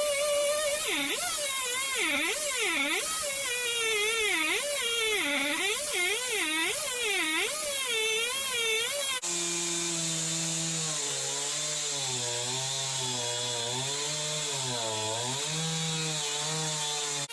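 Stihl MS291 two-stroke chainsaw running under load in a rip cut through timber, its engine pitch swinging up and down over and over as the chain bites and bogs in the wood. About nine seconds in the sound cuts abruptly to a lower-pitched stretch of the same running and wavering.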